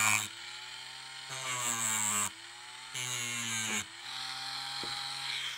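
Dremel rotary tool grinding the cut end of a metal screw to round off the sharp edge. Its motor whine sags in pitch each time the bit is pressed on, in three grinding bursts of about a second each, with lighter running in between and a steadier run near the end.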